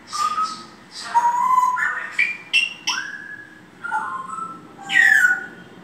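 African grey parrot whistling and calling: a run of short whistled notes with some clicks, stepping up in pitch about two to three seconds in, then a loud falling whistle near the end.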